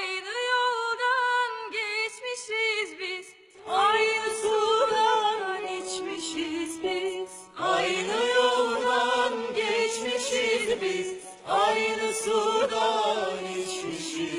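Background music: a Turkish song with singing voices in four phrases of about four seconds each, with a short dip between phrases.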